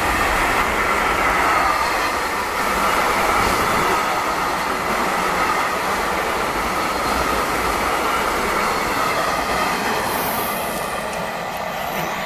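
Freight train of tank wagons rolling past at speed: a steady rush of steel wheels on rail with a faint steady whine over it. The sound eases slightly near the end as the last wagons pull away.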